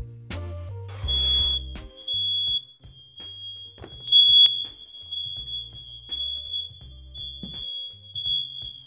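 Household smoke alarms going off, a high-pitched alarm tone repeating in long beeps with short gaps, starting about a second in and going on steadily; they were set off by brazing on the air handler's refrigerant lines. Background music plays underneath.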